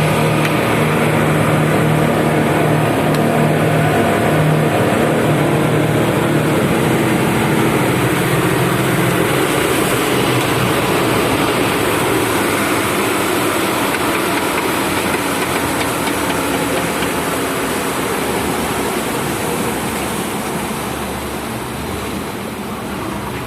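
Boat engine running steadily under way, with water and wind rushing past the hull. The engine's hum fades into the rush about nine seconds in, and the whole sound slowly gets quieter toward the end.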